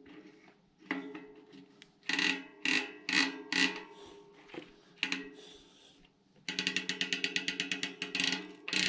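Star-ratchet freehub of a Mavic rear hub clicking: a few separate clicks, then from about six and a half seconds in a fast, even ticking of roughly eight clicks a second as the freshly assembled freehub freewheels. Background music plays underneath.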